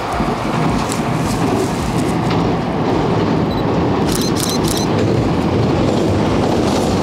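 Kintetsu electric train crossing a railway bridge: a steady rumble of wheels on rails that grows louder, with a few sharp clicks about four seconds in.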